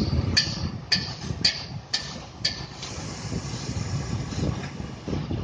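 Truck crane's diesel engine running with a steady low rumble, joined by sharp ringing clicks about twice a second that stop about two and a half seconds in.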